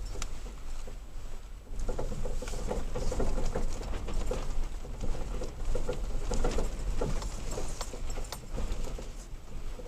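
Irregular knocks, rattles and crunches from a third-generation Toyota Tacoma driving over a rough dirt road, with a steady low rumble underneath.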